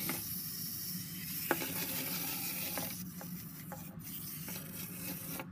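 Small clockwork wind-up toy running, its spring-driven gears whirring steadily with a few light clicks, the whir cutting off suddenly at the end.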